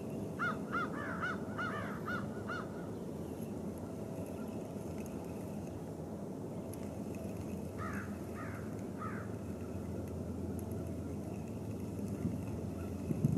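A bird calling in two runs of short, repeated arched notes: about seven quick calls in the first few seconds, then three more about eight seconds in, over a steady low background noise. A thump near the end.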